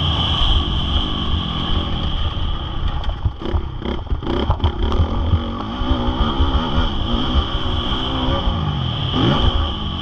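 Honda CRF450R single-cylinder four-stroke motocross engine being ridden hard, its revs climbing and falling again and again as the throttle is opened and shut. A burst of clattering knocks about three to five seconds in.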